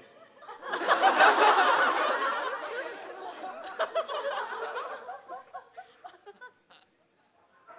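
Studio audience laughing together, swelling about half a second in, loudest in the first couple of seconds, then trailing off over the next few seconds.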